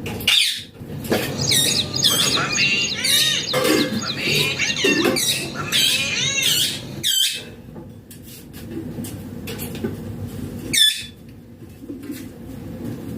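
Green ringneck parakeet (rose-ringed parakeet) calling: a run of rapid chattering calls in the first half, then single sharp screeches about 7 and 11 seconds in.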